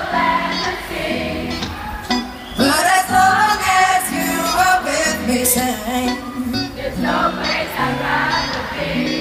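Live pop band playing through a festival PA, heard from the crowd: held keyboard chords changing about every half second under a bass line and drums, with singing over the top.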